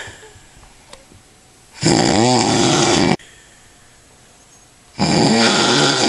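A man snoring heavily after drinking a lot of alcohol: two long, loud snores about three seconds apart, each lasting over a second, with quiet breathing between.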